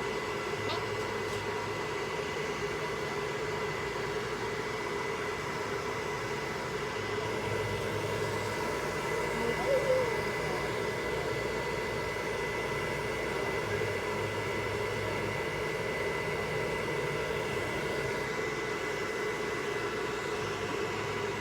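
Handheld hair dryer running steadily: an even blowing rush with a thin high whine.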